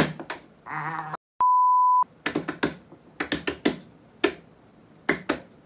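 A steady single-pitch censor bleep, just over half a second long, about a second and a half in. It is followed by a run of sharp clicks, a few a second, that stop near the end.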